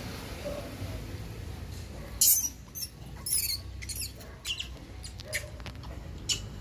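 Wild monkeys squeaking while feeding on papaya: a run of short, high-pitched squeaks, about nine, irregularly spaced, starting about two seconds in.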